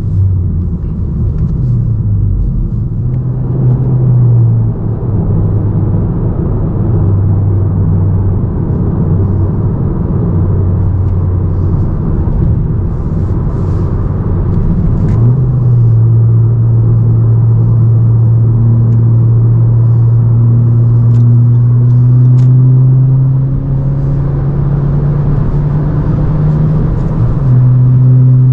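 A 10th-gen Honda Civic Si's turbocharged four-cylinder running at steady revs through its aftermarket cat-back exhaust while driving. The pitch shifts a few times early on, steps up about halfway through and then climbs slowly toward the end as the revs change.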